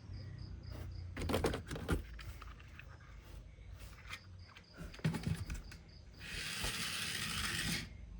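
Plastic toy vehicles and packaging being handled: scattered clicks and knocks, with a rustling hiss lasting about a second and a half near the end.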